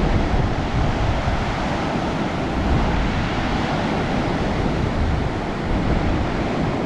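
Pacific Ocean surf washing steadily onto the beach, with wind buffeting the microphone.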